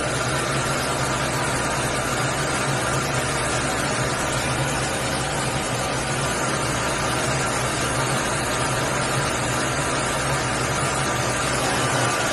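Washing machine running: a steady mechanical hum with an even hiss over it that holds unchanged throughout.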